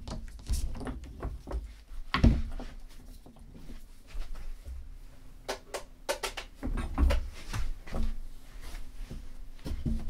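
Handling noise from a Google Home smart speaker and its power cord: a string of plastic clicks and knocks as the cord is fitted and the speaker is set down on a table, the loudest knock about two seconds in.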